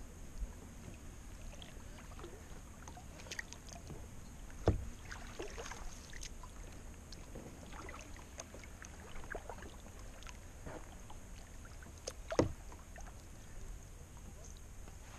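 A plastic sit-on-top kayak being paddled on calm water: soft paddle strokes, splashes and drips. There are two louder knocks, about five seconds in and again about twelve seconds in.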